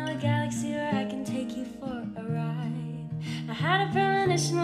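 Soft background music led by plucked acoustic guitar, with a melody line that slides between notes.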